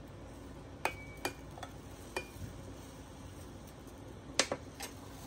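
A spoon clinking against a stainless-steel saucepan of tea as it is stirred: about six sharp clinks, a couple of them ringing briefly.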